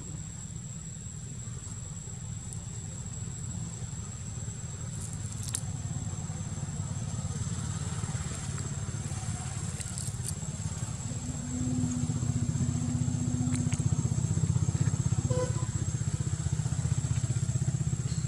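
A steady low engine rumble, louder from about twelve seconds in, with a few short sharp cracks of sugar cane being bitten and torn.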